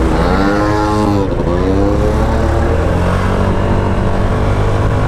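Honda SH125i scooter's single-cylinder 125 cc four-stroke engine accelerating away from a standstill, its pitch rising and falling twice in the first couple of seconds before settling into a steadier run, with wind rumble on the microphone.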